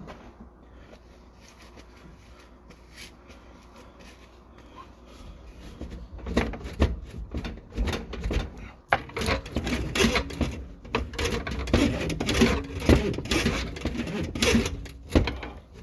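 Irregular knocking and rattling over a low rumble. It is quiet for the first few seconds, then grows into a dense, loud clatter from about five seconds in.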